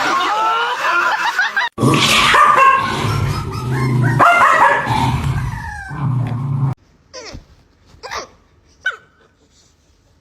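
Dogs barking and vocalizing: a wavering, yowling sound, then a stretch of loud, dense sound, then three short separate barks about a second apart.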